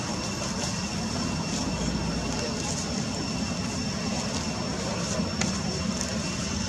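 Steady outdoor background rumble, with a thin, steady high-pitched tone running above it.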